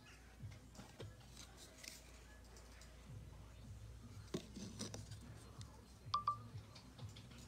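Soft handling clicks and taps of a phone and plastic card, then, about six seconds in, a short two-part electronic beep from an iPhone as its NFC reader finishes reading a Tangem card held against it.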